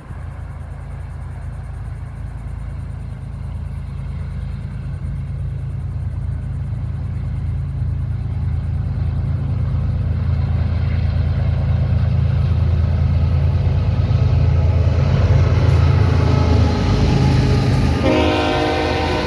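Freight train led by GE Evolution-series diesel locomotives approaching, the engines' low drone growing steadily louder, then the locomotive's horn sounds about a second before the end.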